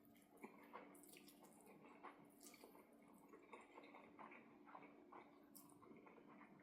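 Faint, wet chewing and mouth sounds of a person eating close to the microphone, with many small irregular clicks and squishes.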